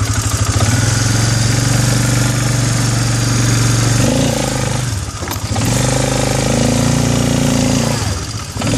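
Arctic Cat 400 4x4 ATV's single-cylinder four-stroke engine running under load as the four-wheeler crawls over fallen branches in four-wheel drive, its note rising and falling with the throttle. The engine drops away briefly about five seconds in and again near the end before picking back up.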